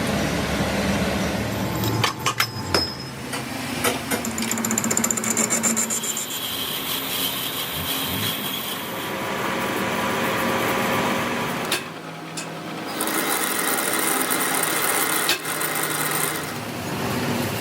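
Metalworking repair noise: several sharp hammer-like knocks about two to four seconds in, then a power tool running with a steady high-pitched whine that drops off briefly near the middle and starts again.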